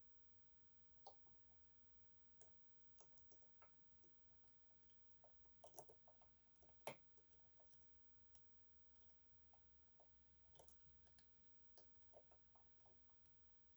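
Faint, irregular small clicks and taps of a short flat hook and tensioner working the unsprung sliders inside an EVVA 3KS high-security lock during picking, with a slightly sharper click about seven seconds in.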